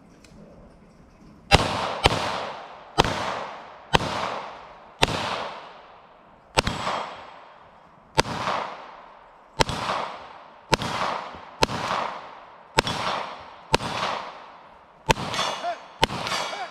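A firearm fired in a steady string of about fifteen shots, roughly one a second, with a quicker pair near the end. Each shot rings out with a long fading echo.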